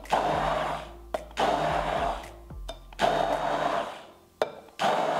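Hand-held immersion blender whirring in four short bursts of about a second each, with brief pauses between, as it purées a thick mixture of cottage cheese, eggs, sugar and sour cream.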